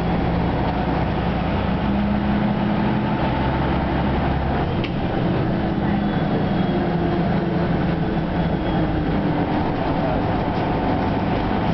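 Ikarus 260 city bus's diesel engine running as the bus drives, with road noise, heard inside the passenger cabin; the engine note changes about halfway through.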